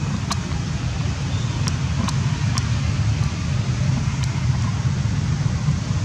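Steady low rumble of outdoor background noise, with four short faint clicks in the first three seconds.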